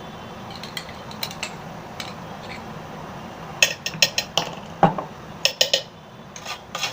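A spoon clinking and tapping against the containers as ghee is scooped into an electric kettle. A few scattered clicks give way to quick clusters of sharp clinks and one duller knock in the second half.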